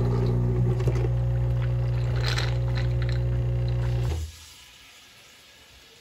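Nespresso CitiZ coffee machine's water pump running with a steady low buzz as water is drawn from the tank, then cutting off suddenly about four seconds in. The pump is pumping again after an air lock was cleared.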